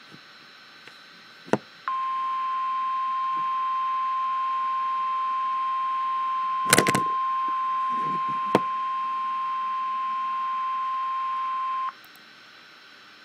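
Weather-radio alert tone, a single steady high tone of about 1,000 Hz starting about two seconds in and cutting off suddenly about ten seconds later. It is the attention signal that comes before a National Weather Service severe thunderstorm warning. A few sharp clicks sound over it, the loudest about halfway through.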